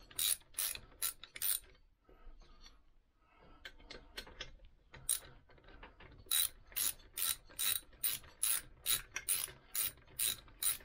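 Socket ratchet clicking as it runs brass exhaust nuts up onto their studs. A quick run of loud clicks comes first, then a short lull and softer, quicker clicks. From about halfway on, louder clicks follow at about two to three a second.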